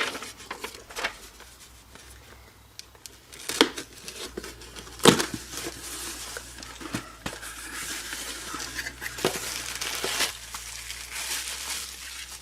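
Packaging crinkling and rustling as it is handled and unwrapped, with a few sharp knocks about three and a half and five seconds in.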